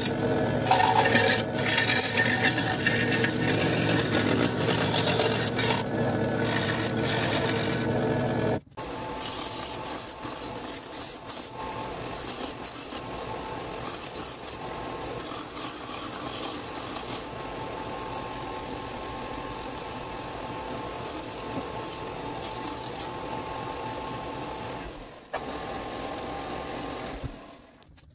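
A scroll saw cutting a thin template sheet, the louder sound, stopping abruptly about eight and a half seconds in. It is followed by a Porter-Cable belt and disc sander running steadily while the template's curved edge is sanded to shape, until it fades near the end.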